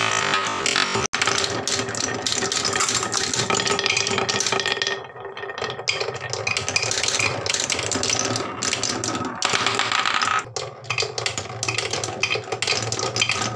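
Marbles rolling along a wooden HABA wave-slope rail, clattering over its wooden bumps in a quick, busy run of clicks and knocks that cuts out for an instant about a second in.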